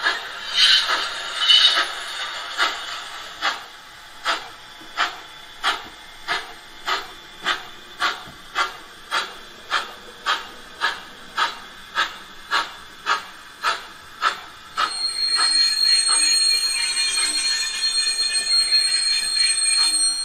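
Steam-engine chuffs from the sound decoder of a Gauge 1 model of a Prussian T3 tank locomotive, played through the model's speaker. The beats are even and quicken slightly, to about two a second. About fifteen seconds in, a steady hiss with a thin high whine sets in, with faint beats still beneath it.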